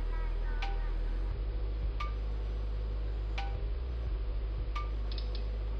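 Background electronic music: chime-like notes struck about every second and a half, each ringing briefly, over a steady low drone.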